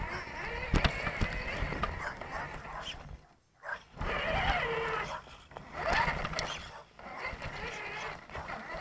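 Electric motor and gearbox of a 1/10 scale Axial Deadbolt RC rock crawler whining as it drives, the pitch wavering with the throttle and cutting out briefly twice, with clicks and knocks from the tyres going over sticks and stones.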